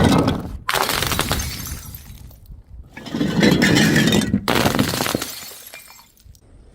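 Glass bottles breaking and crunching in several loud bursts full of crackling shards, a couple of them cutting off abruptly, with short gaps between.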